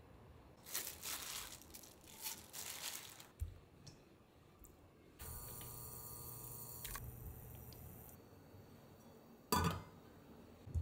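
Kitchen handling sounds: crackly rustling and a thump, then a steady hiss for about three seconds. Near the end a stainless steel lid clanks down onto a stock pot, the loudest sound.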